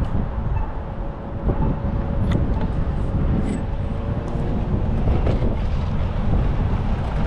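Wind buffeting the microphone of a moving bicycle, a steady low rumble, with city traffic underneath.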